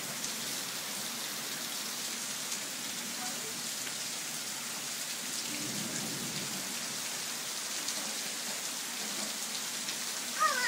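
Steady rain falling during a thunderstorm: an even hiss with fine pattering drops. Near the end, a brief high-pitched sliding squeal.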